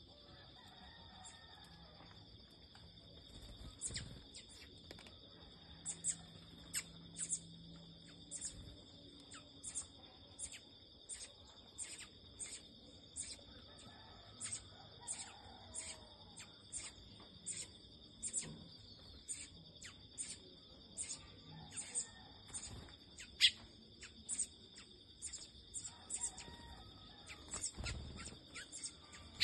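Garden birds calling over a steady high insect drone on two pitches: short, high chirps repeat roughly every half second, with occasional sharper calls in between.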